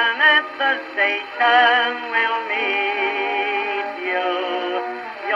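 Background music: an old-time song in which the singer holds long notes with vibrato over the accompaniment. The sound is thin, with no bass and no top.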